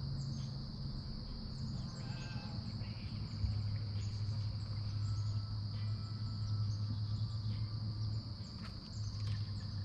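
A steady high-pitched chorus of insects such as crickets from the riverbank woods, over a low steady hum that drops in pitch about three and a half seconds in.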